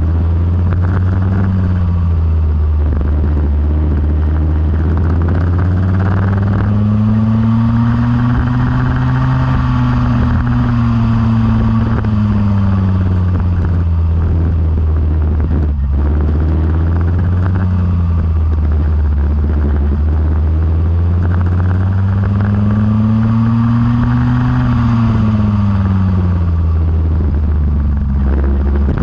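Go-kart engine running steadily on the track, its pitch rising and falling twice as it speeds up and slows down, over a steady low drone.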